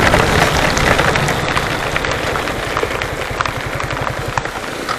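Steady rush of wind and rain over the microphone of a motorcycle on the move, with the bike's engine beating underneath. The rush eases a little in the second half, where the engine's even pulsing comes through more clearly.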